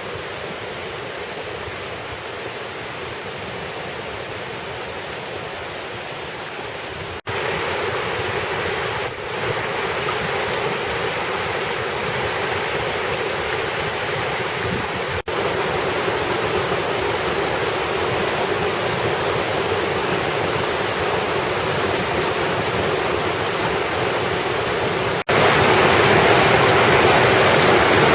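Waterfalls rushing in a steady roar. The sound cuts abruptly three times, about a quarter of the way in, just past halfway and near the end, and each take is louder than the one before.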